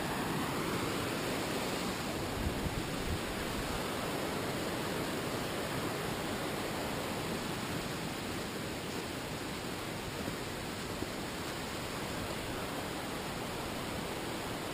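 Fast snowmelt streams rushing where two of them converge: a steady, even rush of water.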